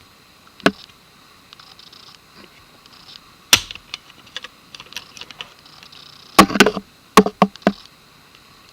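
A long screwdriver scraping and clicking inside a Glock 17's frame, prying the magazine release spring aside to free the release. Scattered sharp clicks with light scraping between them, the loudest a quick run of clicks in the last third.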